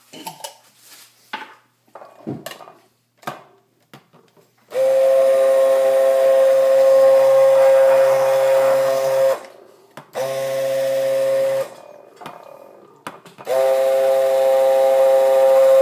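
Hand-held immersion blender running in a glass measuring cup of egg and oil, emulsifying it into mayonnaise. It gives a steady motor whine in three runs: one of about four seconds, a short burst, then a longer run near the end. A few light knocks come at the start, before the motor.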